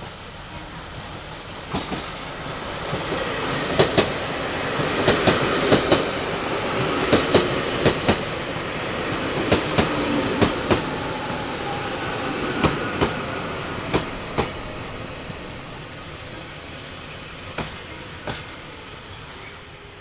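JR Hokkaido 789 series 1000 electric express train rolling past, its wheels clacking over rail joints in quick pairs as each bogie crosses, with the running rumble building up in the first few seconds. It fades over the last few seconds with a last couple of clacks.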